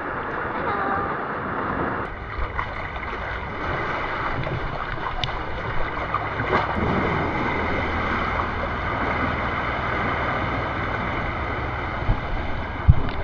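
Ocean waves washing over rocks with a steady rush of surf, wind buffeting the microphone, and a sharp thump near the end.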